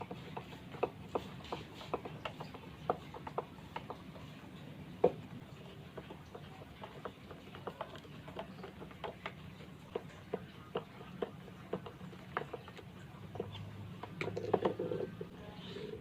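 Irregular light clicks and taps of small parts being handled and fitted by hand during workshop assembly, over a faint steady hum. A short, louder burst of rattling comes near the end.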